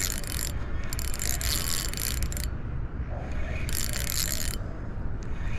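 Spinning fishing reel being cranked in bursts of about a second each, a raspy, whirring ratchet sound, as a hooked Australian salmon is wound in. A steady low rumble runs underneath.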